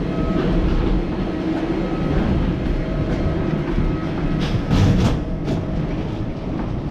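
Steady low rumble of a moving vehicle's interior, with a few sharp clicks or knocks about four and a half to five and a half seconds in.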